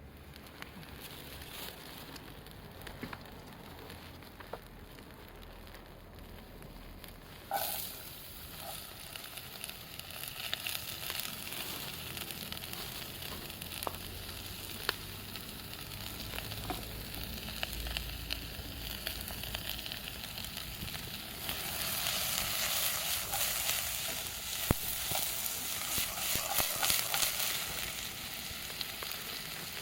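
Food sizzling in hot oil in a pan over a campfire. The sizzle starts suddenly about seven and a half seconds in as the food goes into the pan, then keeps on with scattered pops and crackles and grows louder for a stretch near the end.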